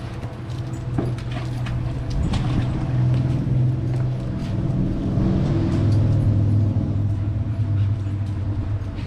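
A motor vehicle's engine running with a steady low hum that swells through the middle and drops in pitch about halfway. Scattered light clicks sit on top.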